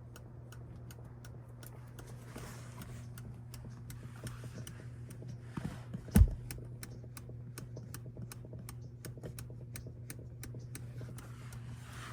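Empty Rivian passenger seat clicking inside the cabin over rough road: a few sharp, slightly irregular ticks a second over a steady low hum, with one heavy thump about six seconds in. The clicking comes from a piece of rubber wedged between two metal pieces of the seat bracket, rubbing dry.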